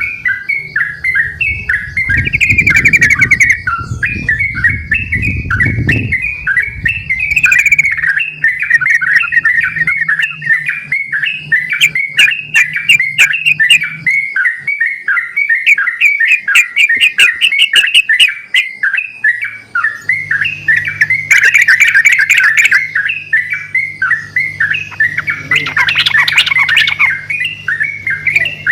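Yellow-vented bulbuls (trucukan) singing busily, with fast bubbly chattering phrases, several birds answering one another without pause.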